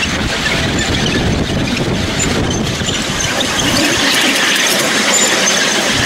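Wheels of a miniature railway train running along the track, with a high squeal from the wheels that comes and goes several times on the curve.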